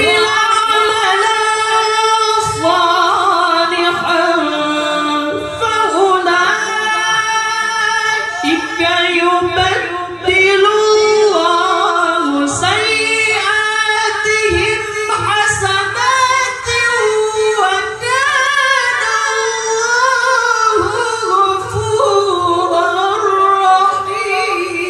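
A young male qari reciting the Qur'an in a high, ornamented melodic style through a microphone, with long held notes and winding melismatic runs.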